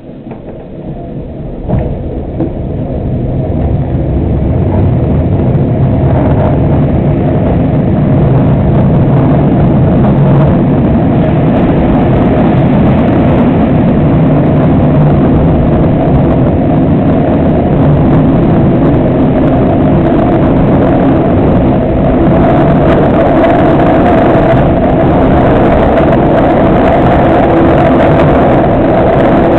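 Class 306 electric multiple unit pulling away from a station, heard from inside the carriage: its running noise builds over the first several seconds, with a single knock about two seconds in, then holds steady at speed as a loud hum over a low rumble.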